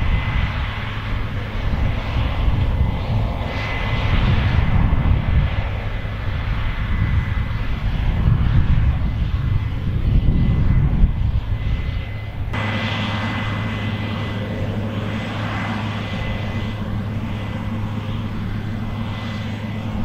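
Case IH 8120 Axial-Flow combine harvester running while threshing rye: a steady engine and machinery hum with a thin high whine. About two-thirds of the way through the sound changes abruptly to a smoother, steadier hum.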